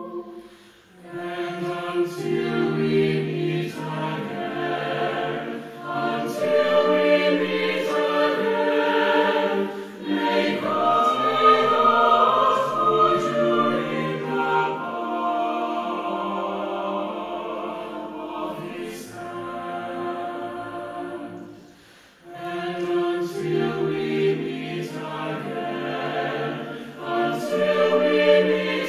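Mixed choir of women's and men's voices singing in harmony, phrase by phrase, with short breaks between phrases about a second in and again about two-thirds of the way through.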